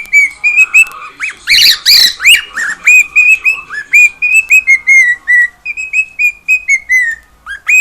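Cockatiel whistling its song: a rapid string of short whistled notes, many of them dipping slightly in pitch. A louder, harsher cluster of rising squawk-like notes comes about one and a half to two and a half seconds in.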